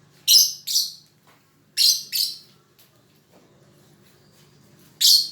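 Pet lovebird giving shrill chirps: two quick pairs in the first two and a half seconds, then one more near the end.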